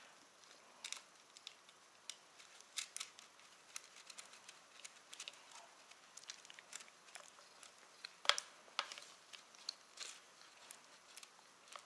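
Faint, scattered clicks and rustles of wiring and plastic connectors being handled and routed by hand, with two sharper clicks about eight seconds in.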